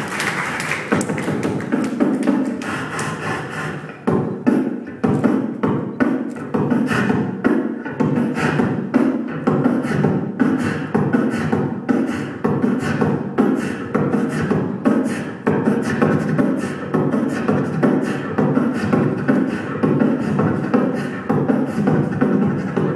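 A male beatboxer performing through a handheld microphone and PA speaker: a fast, continuous rhythm of vocal kick and snare strokes over a low sustained bass tone, with a brief break about four seconds in.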